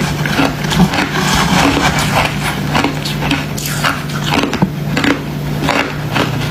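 Crunchy white freezer frost ice being bitten and chewed in quick, irregular crunches, with a steady low hum underneath.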